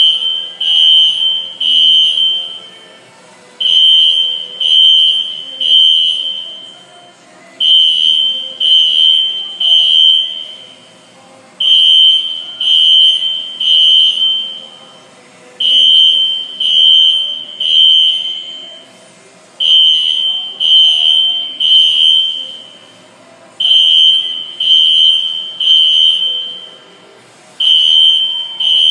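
System Sensor SpectrAlert Classic P24 fire alarm horns sounding the temporal-3 evacuation pattern: three loud, high-pitched beeps, a short pause, then three more, every four seconds or so.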